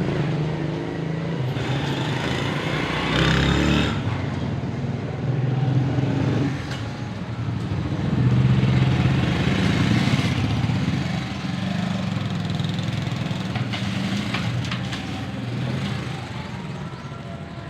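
Outdoor background noise: a steady, low, engine-like rumble that swells and fades several times, with a rising sweep in pitch a few seconds in.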